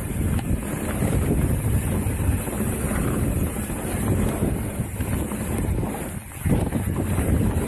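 Wind buffeting the microphone over the rumble of mountain bike tyres on a dirt trail, with the bike rattling over bumps. A brief lull about six seconds in, then a louder jolt.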